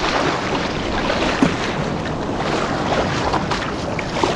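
Rough Lake Superior waves washing around a canoe, with wind buffeting the microphone: a steady rush of water and wind noise.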